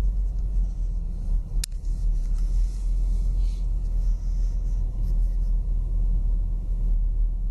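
Low, steady rumble of a car driving, heard inside its cabin, with one sharp click about a second and a half in.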